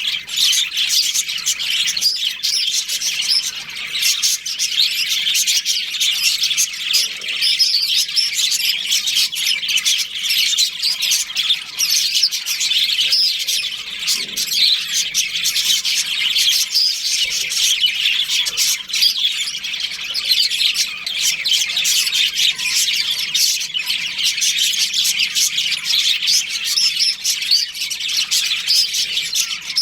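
A budgerigar colony chirping and chattering, many birds overlapping in a dense, unbroken stream of high chirps.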